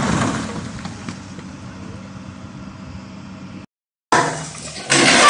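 Rumble of a rockslide coming down onto an excavator, fading away, with a steady engine hum underneath. After a brief cut-out, a loud rush of noise starts near the end.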